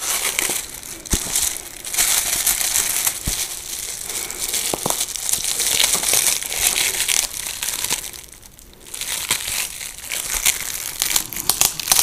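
Plastic wrapping crinkling as it is handled and pulled off a fabric lampshade, with a couple of light knocks early on. The crinkling pauses for about a second two-thirds of the way through.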